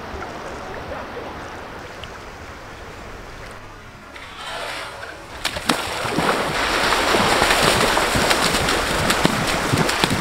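A soft steady hiss at first. From about five seconds in come loud, continuous splashing and spattering of feet and legs leaping and running through shallow sea water, with many sharp crackles of spray.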